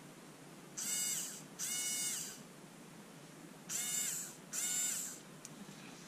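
Small brushed DC motor from a Black & Decker cordless screwdriver, freshly rebuilt, run straight off a lithium cell in four short spins, two pairs about a second and a half apart. Each spin is a high whine that rises and then falls away as the cell is touched on and taken off.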